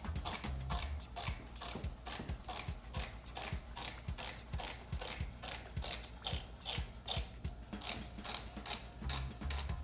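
Chef's knife dicing celery stalks on a plastic cutting board: a steady run of crisp chopping strokes, about three to four a second, each a crunch through the stalk and a tap of the blade on the board.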